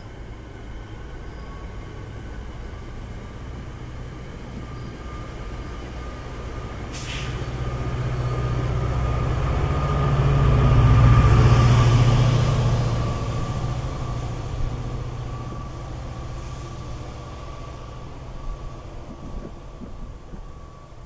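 A train passing by: its rumble builds to a peak about halfway through, then fades away, with a thin steady whine running through it.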